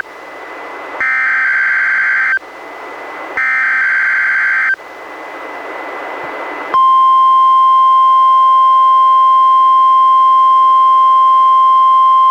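NOAA Weather Radio emergency alert broadcast on a weather radio receiver. Two raspy bursts of SAME digital header data tones, each about a second and a half long, are separated by radio hiss. Nearly seven seconds in, the loud, steady, single-pitched 1050 Hz warning alarm tone starts and holds, marking a Required Weekly Test of the alarm.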